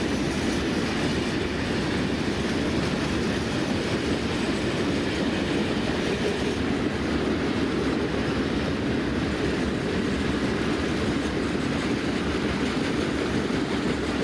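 Norfolk Southern freight train of hopper cars rolling past, a steady low rolling noise of steel wheels on rail.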